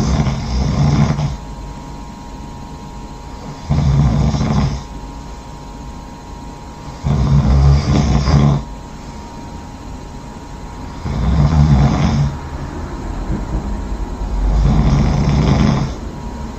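A person snoring loudly in a steady rhythm: five rough snores, each about a second long, come roughly every three and a half to four seconds.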